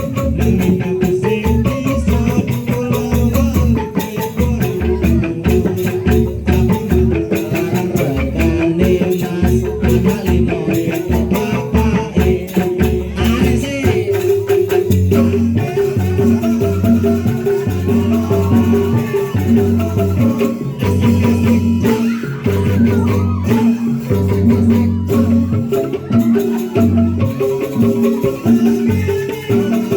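Instrumental music with a dense, fast percussion rhythm over a repeating pitched melody and a stepping bass line.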